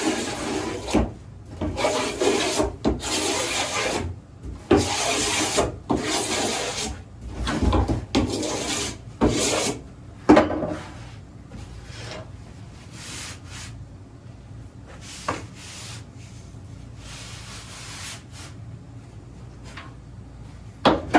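Hand rasp scraping along a PVC pipe to roughen its surface, in long strokes about one a second. After about ten seconds the strokes become faint and sparse.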